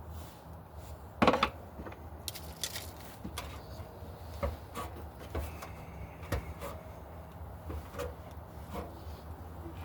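Scattered light clicks and knocks of small parts and tools being handled during electrical fitting work, with one sharper knock about a second in, over a steady low hum.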